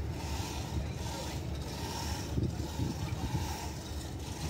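Steady low rumble of background noise with faint voices mixed in.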